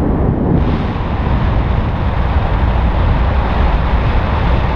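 Steady, loud wind rumble of airflow buffeting the camera microphone in paraglider flight.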